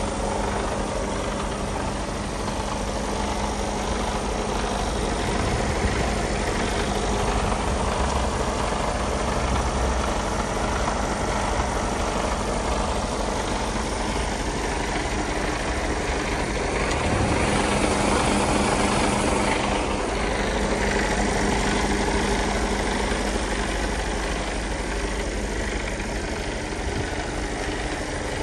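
Mercedes-Benz Actros 2445 tractor unit's 12.8-litre straight-six diesel idling steadily.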